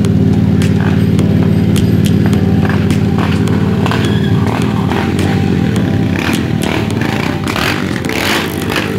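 Motorcycle engine idling steadily and loudly, with short sharp clicks and taps growing more frequent in the last few seconds.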